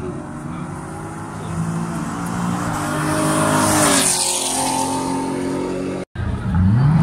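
A car's engine accelerating down the drag strip, growing louder as it approaches and passes close about four seconds in, its pitch dropping as it goes by. After a short break near the end, another car's engine revs up and down.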